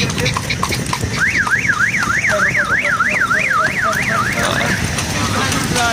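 Horse's hooves clip-clopping on a road under an electronic warbling siren or alarm tone. The tone sweeps up and down about three times a second for roughly three and a half seconds, starting about a second in.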